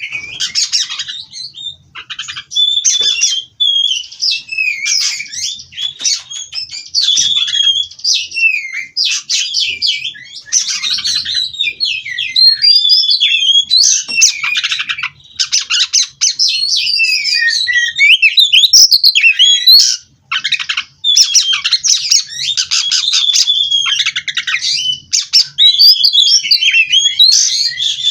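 Oriental magpie-robin singing a long, nonstop rolling song of fast trills and whistled slides, broken only by a few short pauses.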